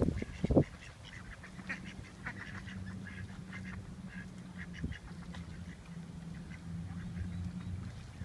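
Mallard ducks on the water giving short, scattered quacks, over a low steady hum. A couple of low thumps at the very start.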